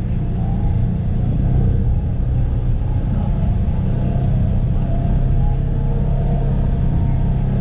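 Polaris Ranger 1000 side-by-side's engine running steadily as it drives, a continuous low, even sound without sharp revs.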